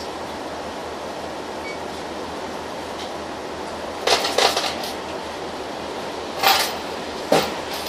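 Inside a Mercedes-Benz Citaro diesel city bus standing at a stop: a steady engine and ventilation hum, broken by a quick cluster of sharp hisses and clunks about four seconds in, a longer hiss about six and a half seconds in and a short one near the end, from the bus's compressed-air brakes and doors.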